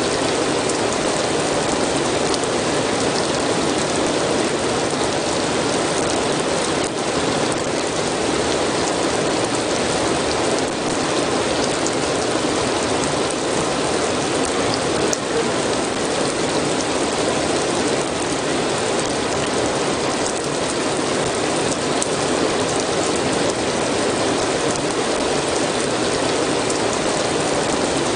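Steady rain, a dense even patter of drops with a few faint ticks.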